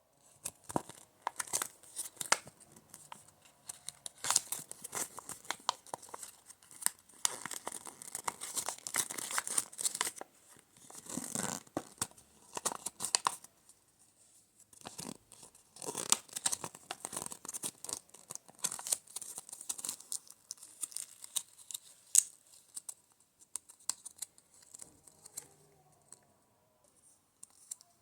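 Toy packaging being torn open and crinkled: irregular bursts of tearing and rustling, with short pauses between them.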